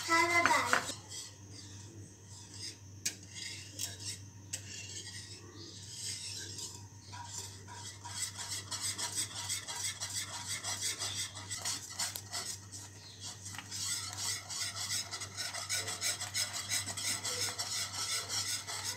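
A wire whisk stirring a thickening milk, cornflour and pineapple juice mixture in a metal pan, its wires scraping and knocking against the pan in a quick, even rhythm. The sound is loudest in the first second.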